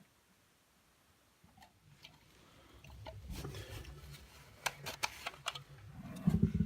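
Near silence at first, then soft rustling and scattered light clicks that grow gradually louder from about a second and a half in, the sound of things being handled close to the microphone.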